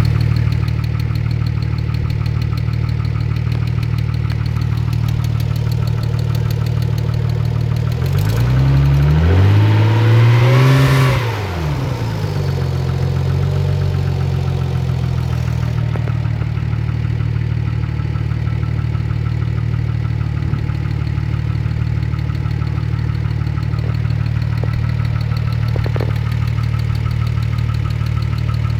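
Nissan 300ZX's V6 engine idling steadily, blipped once about eight seconds in and settling back to idle a few seconds later. It carries an unidentified odd noise that the owner is asking to have diagnosed.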